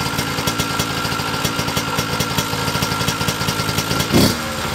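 Honda CR80 single-cylinder two-stroke engine idling with a rapid, even popping, then a short throttle blip about four seconds in. The idle sags when the clutch is let out in gear and picks up when revved, which the owner suspects is a vacuum leak.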